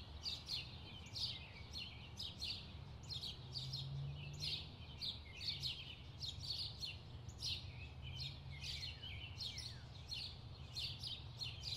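Small birds chirping: a steady run of short, high, downward-sliding chirps, two or three a second, over a faint low hum.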